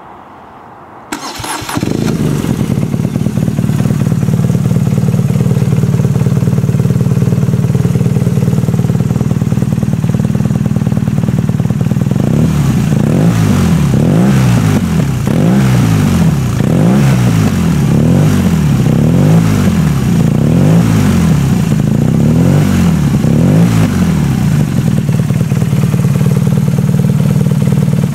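BMW R nineT's air/oil-cooled boxer twin through a single Akrapovič sports silencer with the baffle in: the starter cranks briefly about a second in and the engine catches and idles. About halfway through comes a run of about ten quick throttle blips, the revs rising and falling, before it settles back to idle.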